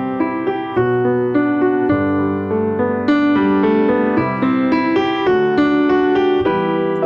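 Background piano music: chords and a melody played at a steady, moderate pace.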